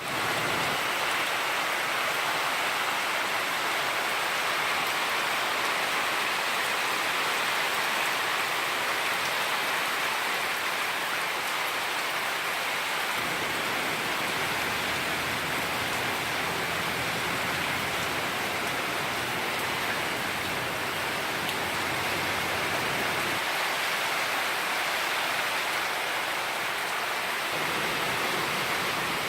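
Steady rush of floodwater and rain, an even hiss with no breaks, after a week of on-and-off rain. A low rumble joins in from about halfway and stops shortly before the end.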